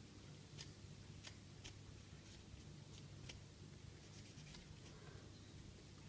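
Near silence over a steady low hum, broken by about five faint, sharp clicks and scratches of small parts being handled and worked at.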